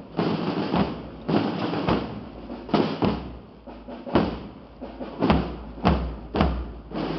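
A marching drum corps playing: heavy bass-drum strokes in a slow, uneven cadence, with continuous drumming between the strokes.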